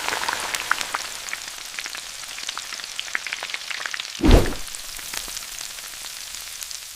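Potatoes frying in hot oil: a steady sizzle full of fine crackling pops. A short low thump swells up about four seconds in.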